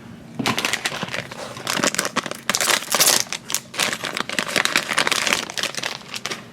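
A blind-bag packet crinkling and rustling as it is handled and opened by hand. The dense crackle starts about half a second in.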